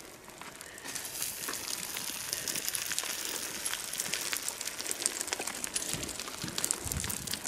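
Boots and trekking poles on loose mountain scree: a steady crunching and trickling of small rocks underfoot, dotted with sharp clicks, with a few low thuds near the end.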